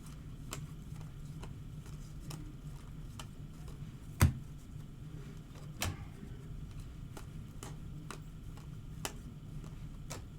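Trading cards and packs being handled on a table: scattered light clicks and taps, with a louder knock about four seconds in and a smaller one about a second and a half later, over a steady low hum.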